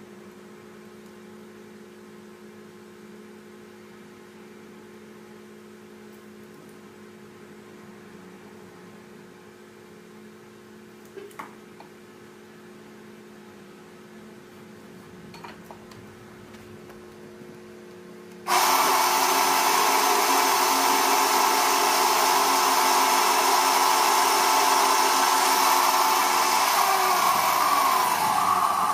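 A steady low hum with a couple of small knocks, then about two-thirds of the way through a woodworking power tool's motor comes in abruptly, running loudly and evenly, and winds down with a falling pitch near the end as it is switched off.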